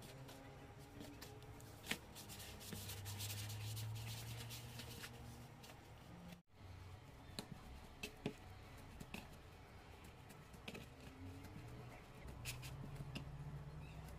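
Hand mixing and kneading flour and water into dough in a bowl: faint rubbing and scraping with scattered light taps, broken by a brief dropout about halfway.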